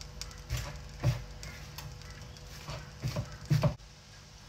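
Irregular dull knocks and thumps from hands kneading chapati dough in a plastic mixing bowl, the loudest cluster near the end as an electric kettle is taken up to pour into the bowl.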